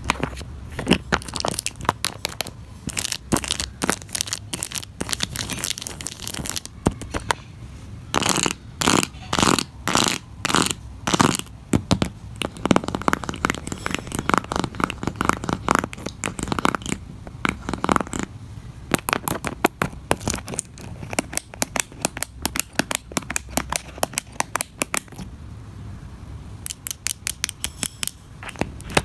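Fingernails tapping and scratching on small plastic toys on a cardboard fidget board, in runs of quick taps with short pauses: first a plastic toy pot of faceted beads and pom-poms, then Lego bricks tapped with the back of the nails, which sound "so creamy", then a plastic toy egg near the end.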